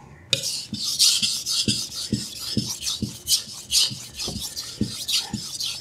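Kitchen knife being sharpened on the 1000-grit side of a soaked Imanishi Combo 1000/6000 waterstone: a wet, gritty scrape with each stroke, about two strokes a second, starting about a third of a second in.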